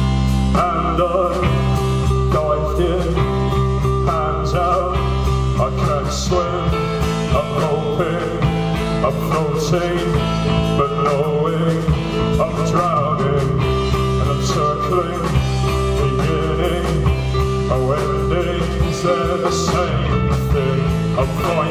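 Live band playing a song's instrumental opening: guitars over bass, with steady drum strokes.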